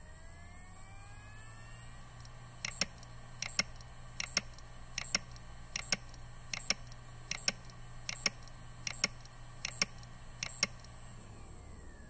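Failing Seagate Barracuda 1 TB hard drive in an Iomega external enclosure spinning up with a rising whine. Its heads then knock in sharp double clicks about every 0.8 seconds, eleven times, and the motor spins down near the end. This is the repeated clicking of a failing drive that cannot read.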